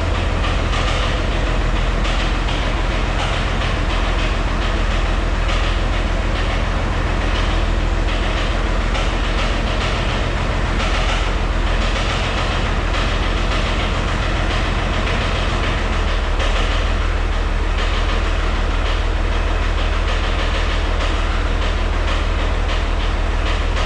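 White 2-155 tractor's Hercules six-cylinder diesel running steadily with a fast rhythmic knock from inside the engine, with blow-by, exhaust and oil pressure all normal apart from that noise.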